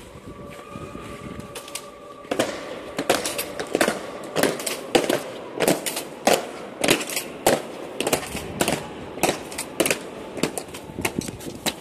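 Honour guards' boots striking a stone floor in a slow ceremonial march during a changing of the guard. The sharp, evenly spaced footfalls begin about two seconds in, at roughly three steps every two seconds.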